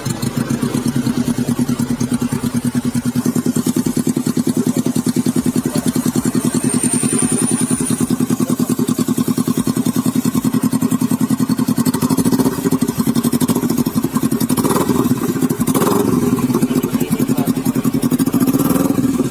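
Carbureted Kawasaki Ninja 250 parallel-twin idling through a short aftermarket GP-style slip-on exhaust with the dB killer still fitted: a steady, fast, even exhaust pulse.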